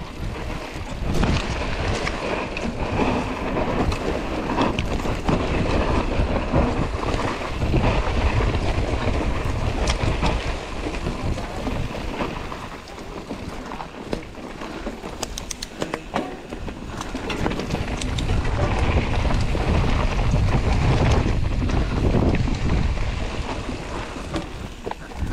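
Enduro mountain bike riding down a rocky trail: tyres crunching over stones and dirt, the bike clattering and rattling over the bumps, with wind rushing across the microphone.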